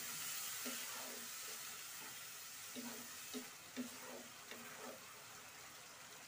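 Wooden spatula stirring wet onion-and-spice masala in a nonstick pan, a run of soft scraping strokes in the middle, over a faint steady sizzle that slowly fades. The masala is being cooked down with a splash of water.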